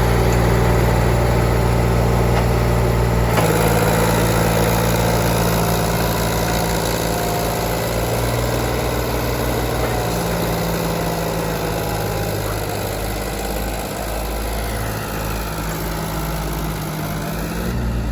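Heavy diesel engine running steadily at a constant speed, from the backhoe loader or tractors at work loading soil.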